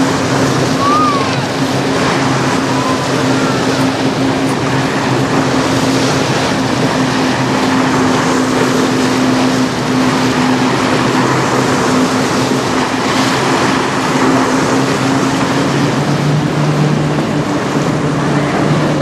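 Large bulk freighter passing close by, its engine a steady low drone over the rush of river water and wind.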